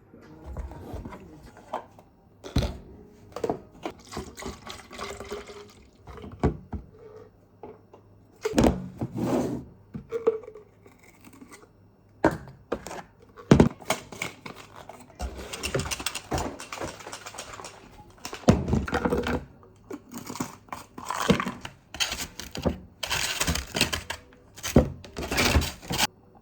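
Irregular handling noises: a string of thunks and clicks with rustling between them, the loudest knocks coming every second or two.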